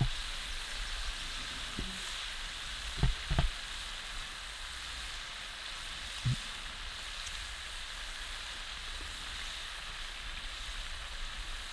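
Fish fillets frying in very hot oil in a cast-iron skillet over a campfire, a steady sizzle. A few short low sounds come about three seconds in and again about six seconds in.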